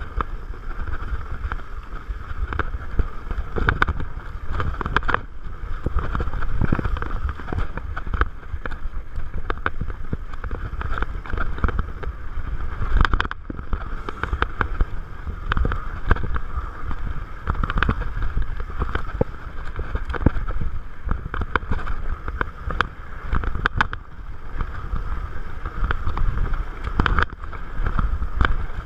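Salsa Bucksaw fatbike descending a rocky dirt singletrack: steady rumble of wind on the microphone and fat tyres on the dirt, with many short clicks and knocks as the bike rattles over bumps and stones.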